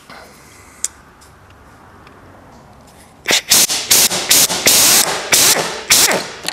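Pneumatic 3/8-inch butterfly impact wrench hammering in a series of short trigger bursts, starting about three seconds in, as it backs out a screw.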